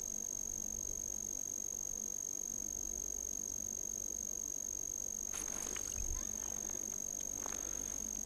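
A steady high-pitched electronic whine over a low rumble of wind. From about five seconds in come brief rustles and light clicks as hands handle the fishing rod and line, with one soft low thump.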